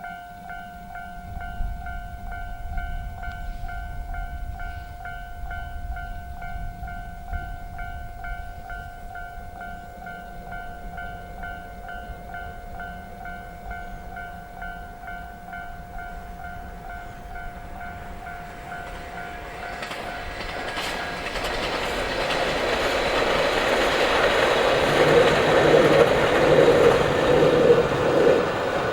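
Level-crossing warning bell ringing with a steady repeating beat, then a diesel train approaches and passes the crossing, growing louder over the last ten seconds and drowning out the bell.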